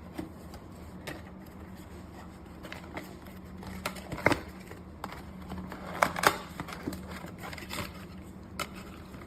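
Handling noise: scattered clicks and taps, over a steady low hum. The loudest click comes about four seconds in, and two more come close together around six seconds.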